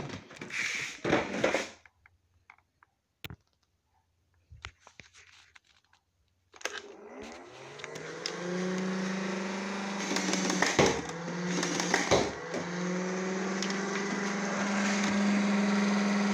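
A motorized Nerf blaster's flywheel motor spins up about six and a half seconds in, then holds a steady whirring hum. The hum dips briefly twice, with sharp clicks, around the middle. Before the spin-up there is a short clatter of the plastic blaster being handled.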